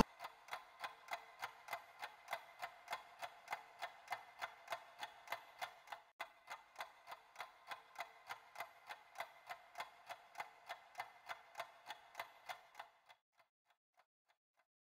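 Clock ticking steadily, about three ticks a second, stopping abruptly about 13 seconds in.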